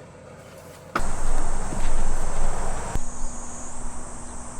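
Insects trilling steadily in a high thin tone, with a loud rushing noise that cuts in suddenly about a second in and eases off after about two seconds.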